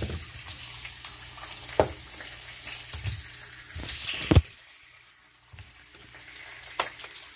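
Thin pepperoni and salami slices sizzling in a hot frying pan, with a few knocks and handling bumps. A loud thump comes about four and a half seconds in, after which the sizzling is quieter.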